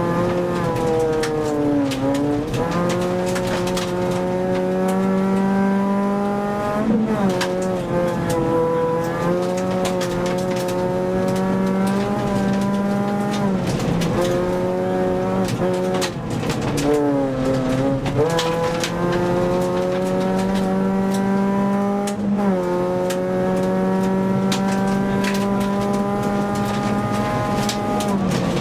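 Rally car's engine heard from inside the cabin at full effort on a gravel stage. Its pitch climbs through the revs and drops sharply at each gear change, several times over. Gravel road noise and scattered ticks and clatters run underneath.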